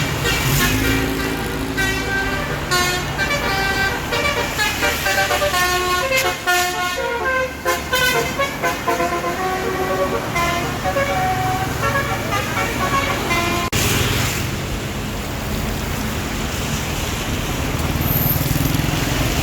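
Tour bus basuri telolet horn playing a tune of stepped notes for about ten seconds. After that the bus's engine runs, with a short hiss about fourteen seconds in.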